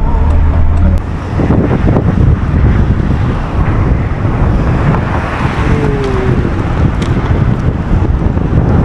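Wind rumbling on the microphone, over the noise of road vehicles.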